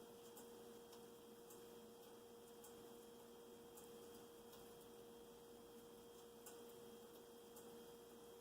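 Near silence: room tone with a steady faint hum and a few faint scattered ticks.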